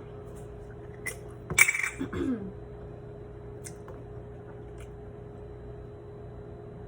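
A few light clinks of tableware or a glass, the loudest about one and a half seconds in, then a steady low hum.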